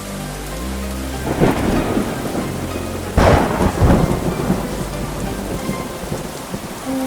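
Thunderstorm sound effect: steady rain with two loud thunderclaps, one about a second in and a bigger one about three seconds in, over soft background music.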